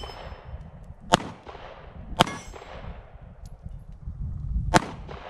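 Three pistol shots from a Diamondback DB9 9mm subcompact pistol, sharp cracks with the second coming about a second after the first and the third about two and a half seconds later.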